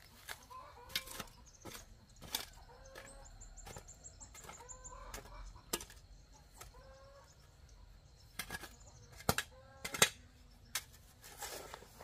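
Chickens clucking in short calls through the first half, with a quick run of high chirps about three seconds in. Sharp knocks and clicks come throughout, the loudest two about nine and ten seconds in.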